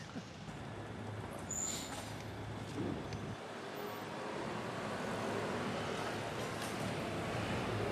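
City street traffic: a steady wash of passing cars and scooters, growing a little louder in the second half, with a brief high-pitched squeak about one and a half seconds in.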